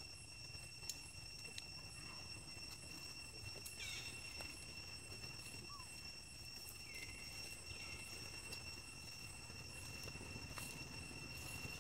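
Faint outdoor ambience: a steady, high-pitched insect drone, with a few soft clicks and a couple of brief high squeaks.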